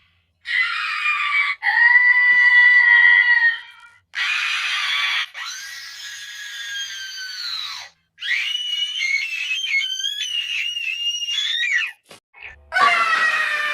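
High-pitched, sped-up scream sound effect, the Alphabet Lore letter А/Я scream, played over and over: a string of screams, each one to four seconds long with short breaks between. The scream a little past the middle wavers and jumps in pitch.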